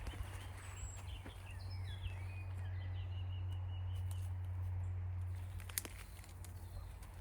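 Birds chirping a few short phrases over a steady low hum, with a sharp click about six seconds in.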